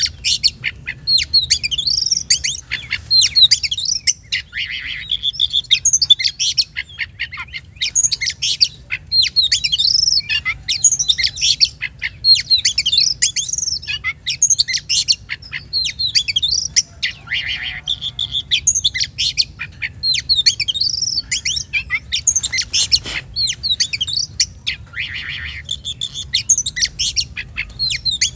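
Oriental magpie-robin (kacer) singing a fast, unbroken run of varied chirps, whistles and trills.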